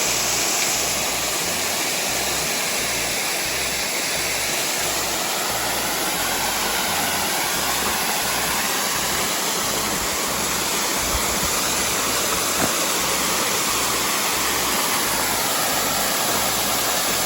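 Princess Falls, a small waterfall on Lick Creek, pouring into its splash pool at low flow: a steady rush of falling water.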